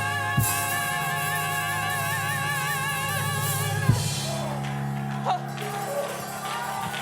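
Gospel praise team singing a long held note with vibrato over a live band with drums. The voices cut off on a drum hit about four seconds in, and the instruments ring on with low sustained chords.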